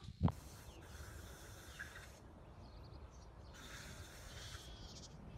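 Faint outdoor background noise: a steady low rumble with two spells of hiss, after a short low thump right at the start.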